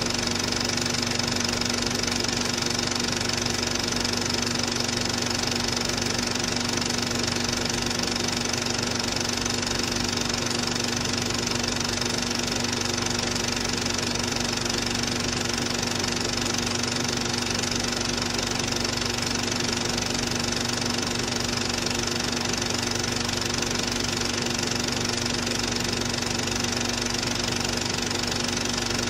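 Cine film projector running: a steady mechanical whirr with a fast, even clatter from the film-advance mechanism and a constant hum, unchanged across the shots.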